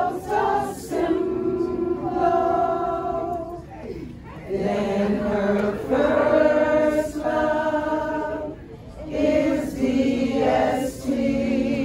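A group of women singing together without accompaniment, in slow phrases of long held notes, with short breaks about four seconds in and again near nine seconds.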